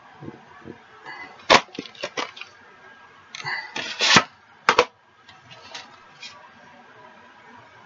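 Sharp plastic clicks and knocks of a VHS cassette and its case being handled and loaded into a VCR, several in the first five seconds, the loudest about one and a half and four seconds in, with quieter fumbling after.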